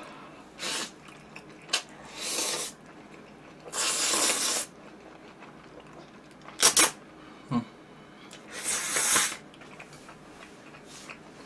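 Stir-fried instant noodles being slurped in about four airy slurps, the longest a little past a third of the way in, with a couple of short clicks from the mouth near the middle.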